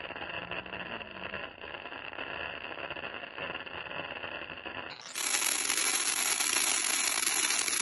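Pencil firework burning, a dense crackling fizz of sparks. About five seconds in it turns suddenly louder and brighter.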